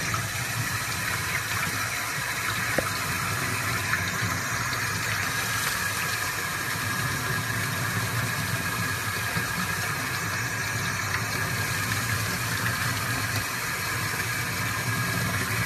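Sink faucet running steadily, the water splashing over hands and a small puppy held under the stream.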